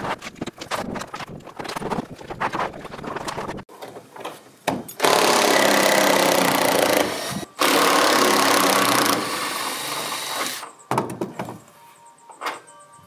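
Cordless Makita impact driver hammering as it backs out roofing screws from corrugated cement roof sheets, in two long runs near the middle with a short break between. Before that, scattered knocks and clatter of the roof sheets being worked on.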